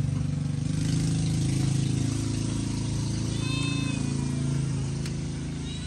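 A small engine running steadily at idle, a low, even hum. A brief thin high chirp sounds about three and a half seconds in.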